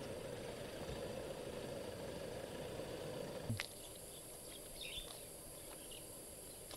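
Outdoor field ambience with no speech. A steady low rumble runs for the first half and ends with a click about three and a half seconds in. A quieter stretch follows, with a high steady whine and a few faint bird chirps.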